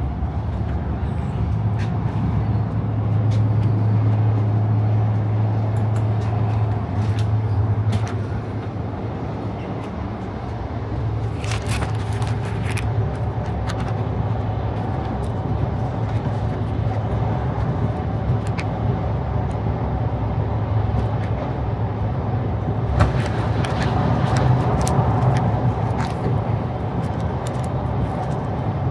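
Cabin noise inside an Iryo high-speed train: a steady low rumble that swells a few seconds in, eases off briefly, then carries on, with scattered faint clicks.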